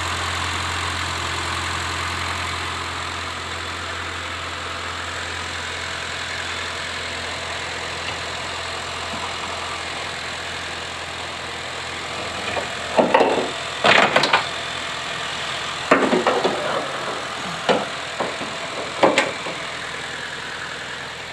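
Honda Brio's engine idling with a steady low hum, judged sound by the mechanic checking for a vibrating hum. From about thirteen seconds in, five or six short sharp knocks come over it.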